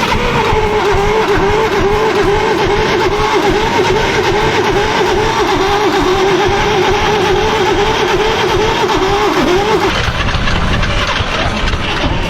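Caterpillar D8H bulldozer's starting engine being cranked over by its starter for about ten seconds without catching, a steady wavering whine that stops near the end.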